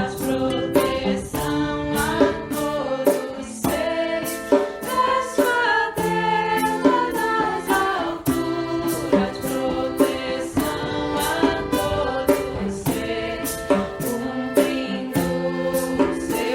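Background music: voices singing together in a choir-like style over a steady beat.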